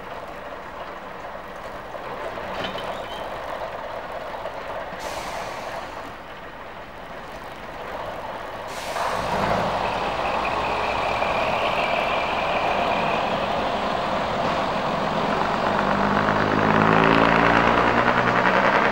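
Class 115 diesel multiple unit's underfloor diesel engines idling, then opening up about halfway through as the train pulls away. A high steady tone sounds for a few seconds after they open up, and near the end the engine note climbs as the train gathers speed.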